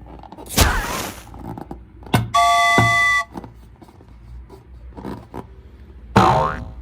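A string of short sound effects: a noisy whoosh about half a second in, then a steady horn-like honk of several held tones lasting about a second, and near the end another noisy burst with falling tones.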